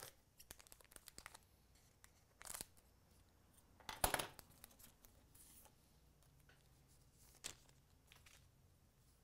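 Faint rustling and tearing as a hockey card pack is opened and its cards handled. A run of small clicks comes at the start, and the loudest tear is about four seconds in.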